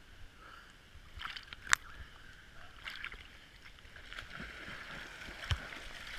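Water splashing and sloshing, with a few sharp clicks; the loudest is a single sharp knock a little under two seconds in.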